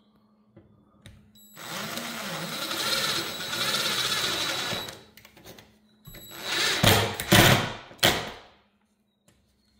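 DeWalt 20V cordless drill driving a screw through a steel mounting bracket into the wall. The motor runs steadily with a whine for about three seconds, stops, then runs again about six seconds in with two or three louder short bursts as the screw is driven home.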